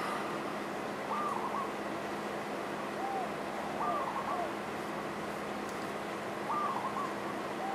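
A bird calling outside, repeating short rise-and-fall call notes in small groups every two to three seconds, over a steady low hum.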